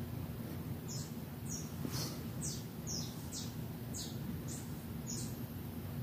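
A run of about eight short, high chirps, each sliding down in pitch, coming about two a second over a low steady background hum.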